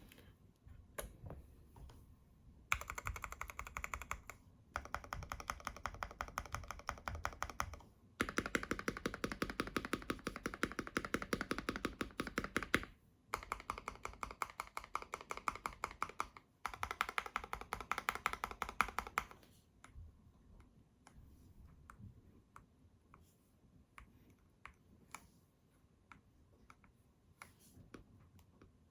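Keychron Q1 mechanical keyboard with factory-lubed Aquaking 67g switches on a brass plate, tape-modded and foam-dampened, with PBT keycaps, being typed on. A few scattered keystrokes, then fast continuous typing in several runs with short pauses, then slow single key presses near the end.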